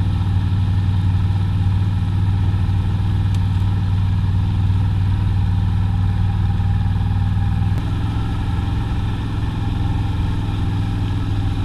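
ATV engine running at low revs with a steady note; about eight seconds in its note changes as the quad moves off.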